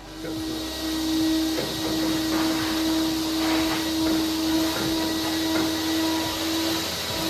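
Vacuum cleaner running steadily with a constant motor whine and rushing air, sucking sanding grit and blasting debris out of a bare car shell, with a few brief rattles.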